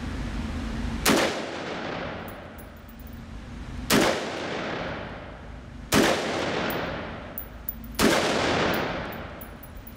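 AR-15 rifle with an 18-inch barrel firing four single shots, spaced about two to three seconds apart, each echoing through an indoor concrete range. Faint high clinks sound between the shots.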